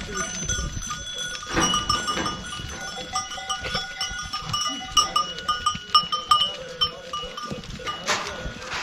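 A flock of goats and sheep milling about, their neck bells clinking and ringing over and over, with an animal call now and then.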